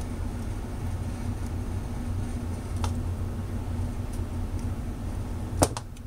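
Steady low hum of a small workshop, with small clicks of wires and parts being handled by hand: a faint one about halfway through and a sharper tap near the end.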